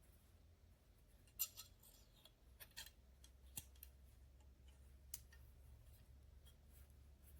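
A few faint, sharp clicks and light taps, spaced irregularly over a low steady hum, like small objects being handled.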